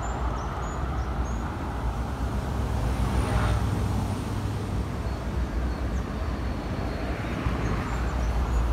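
Steady outdoor background noise with a strong low rumble, and a few short high chirps in the first second and a half.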